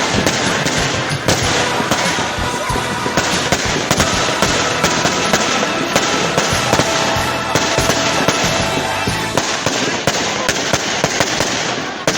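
Fireworks display: a loud, dense crackle of many rapid pops and bangs with no break.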